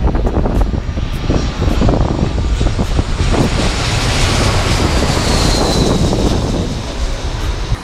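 Twin-engine jet airliner on final approach passing low overhead, its engine noise building to a loud peak with a high whine that falls in pitch as it goes by. Wind buffets the microphone throughout.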